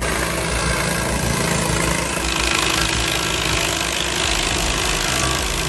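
Excavator-mounted stump grinder with tungsten teeth grinding into a stump: a steady, dense grinding noise over the running engine, turning brighter and harsher about two seconds in.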